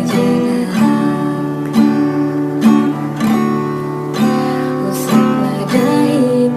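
Acoustic guitar strummed in slow chords, a new strum roughly once a second, each chord left to ring.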